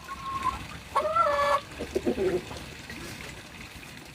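Backyard hens calling: a short call at the start, a loud drawn-out squawk about a second in, then a few lower clucks.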